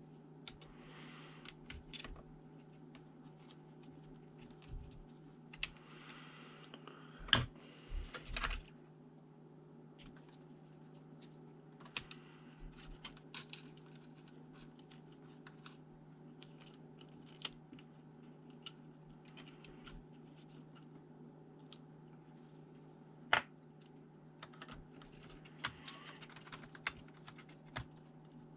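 Scattered small clicks, taps and short scrapes of hands handling ThinkPad T400 laptop parts and small tools during a CPU swap. The loudest is a sharp knock about seven seconds in, with another about 23 seconds in, over a steady low hum.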